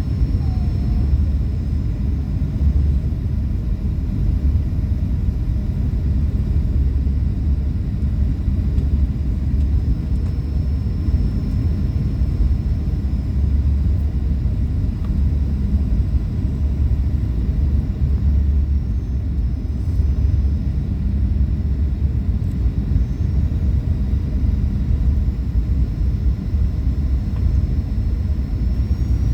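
Steady low rumble of a Boeing 737-800 heard in the cabin, unchanging throughout.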